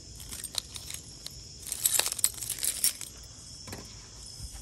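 A large bunch of keys jangling as it is handled, with scattered clicks and a burst of loud jingling about two seconds in.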